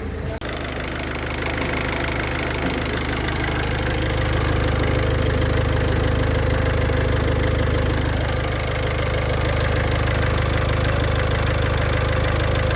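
Car engine idling steadily, with a fine, rapid, cricket-like chirping on top from the clutch release (thrust) bearing, whose balls are starting to fail.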